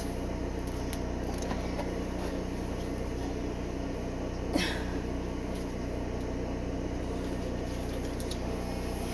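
Steady low electrical hum of room tone, with one brief rustle or knock about four and a half seconds in.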